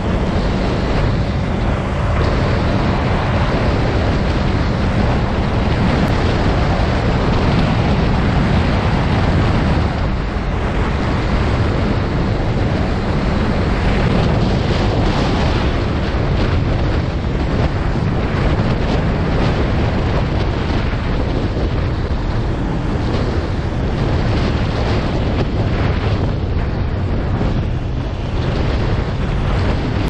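2019 Suzuki GSX250R's parallel-twin engine running steadily, with heavy wind noise over the microphone.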